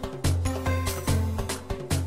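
Background music with a steady beat, about two strokes a second, over a bass line.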